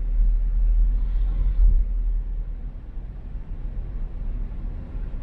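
A car driving: a low, steady rumble of engine and road noise, swelling briefly about a second and a half in.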